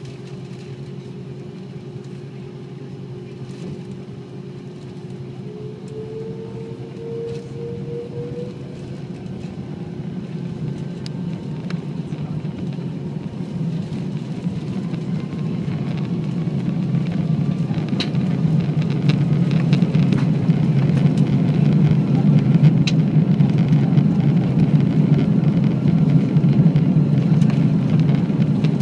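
A jet airliner's engines spool up for takeoff, heard inside the cabin: a rising whine over a deep rumble that grows steadily louder as the takeoff roll begins, with a few light rattles near the end.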